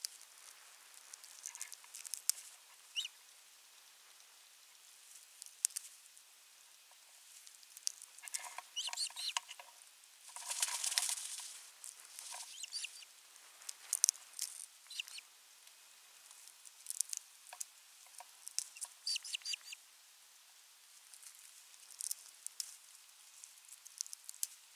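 Scattered clicks, taps and rustles from an osprey nest of sticks, with a longer, louder burst of rustling about ten seconds in.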